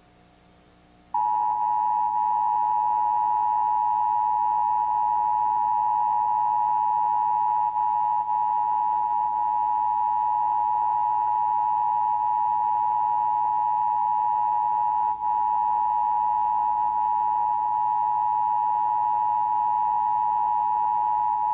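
Emergency Broadcast System attention signal: the steady two-tone alert (853 and 960 Hz sounded together), starting abruptly about a second in and holding loud and unchanged, broadcast during a station's EBS test.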